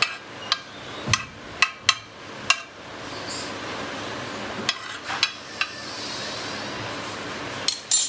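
Steel spoon clinking and tapping against a ceramic serving platter as poha is spooned and spread into it: a quick run of sharp clinks at first, a few more about five seconds in, and the loudest clank near the end, over a soft steady hiss.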